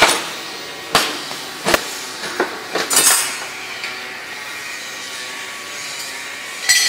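A series of sharp metal knocks and clanks, roughly a second apart, then one more clank near the end: aluminium pieces and hand tools striking a steel workbench.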